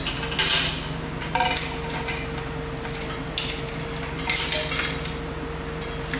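Loose metal parts and tools clinking and rattling in several short bursts, over a steady low mechanical hum.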